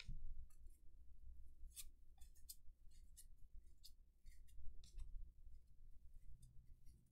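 A stack of 1983 Fleer baseball cards being flipped through by hand. The card edges make faint, scattered clicks and rustles.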